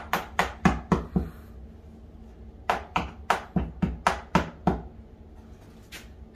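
Quick, light taps on a deer cape stretched over a taxidermy shoulder-mount form, struck with a small hand tool. They come in two runs of about four taps a second, with a pause of about a second and a half between them.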